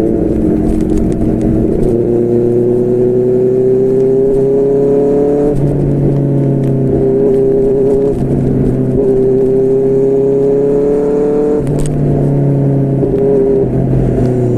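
QJMotor SRK600 inline-four engine through a Yoshimura R11 exhaust pulling steadily under acceleration. The pitch climbs slowly, drops sharply at each of two upshifts, and climbs again.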